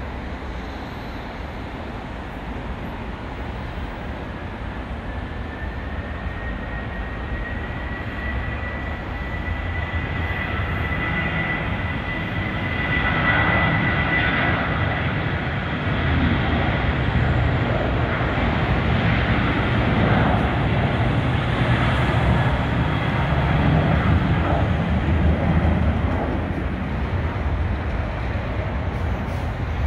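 Boeing 737-800's CFM56-7B turbofan engines at takeoff thrust during the takeoff roll: a steady rumble with a high fan whine that rises slightly in pitch, growing louder until the jet passes about halfway through, then holding loud as it lifts off.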